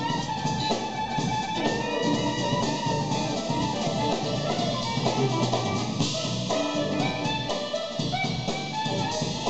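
Live electric jazz-fusion band playing continuously: drum kit, electric bass, electric guitar and keyboards, with a saxophone at the microphone.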